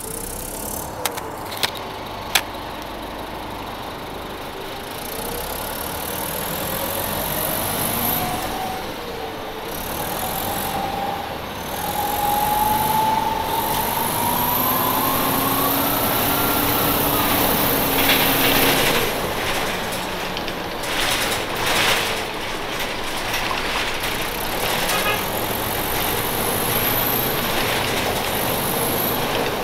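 A 1996 Nova Bus RTS-06 transit bus running, its Detroit Diesel Series 50 four-cylinder diesel and Allison automatic transmission giving a whine that climbs in pitch over several seconds, then drops about halfway through. Two sharp clicks sound in the first few seconds.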